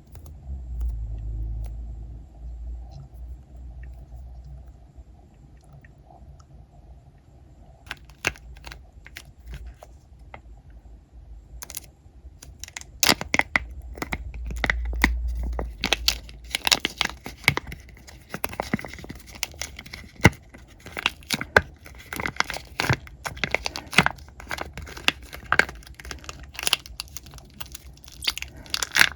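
Hands handling and squeezing squishy toys: low handling rumble at first, then from about twelve seconds in a dense run of sharp crackles and crinkles as a squishy is squeezed and pulled.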